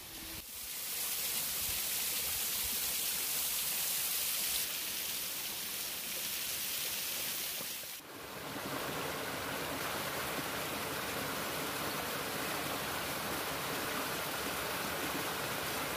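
Waterfall: a steady, bright hiss of water falling onto rock, changing suddenly about eight seconds in to a fuller, lower rush of water running down a rocky cascade.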